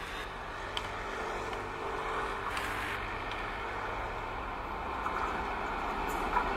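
WAP-4 electric locomotive hauling a passenger express on approach: a steady rumble of the train with a faint steady hum, growing gradually louder.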